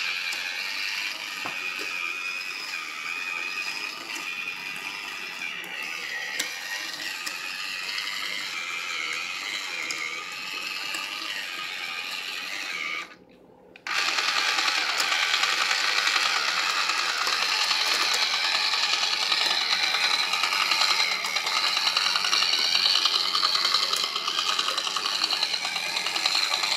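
Small 3-volt electric motor and its gears whirring steadily as they drive the popsicle-stick Theo Jansen walking linkage. The sound cuts out for about a second midway, then comes back a little louder.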